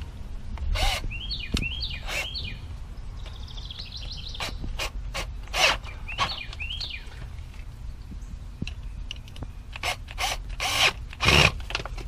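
Cordless drill driver running in short spurts, driving the screw of a hose clamp on a rubber no-hub pipe coupling until it is tight. Birds chirp in the background.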